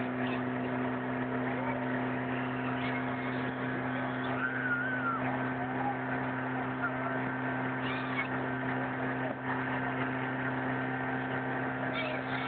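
Motorboat engine running steadily under way, a constant low drone, with a rush of wind and water.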